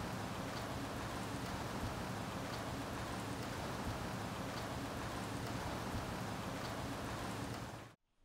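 Steady rain falling, an even hiss with a few faint drip ticks, cutting off abruptly near the end.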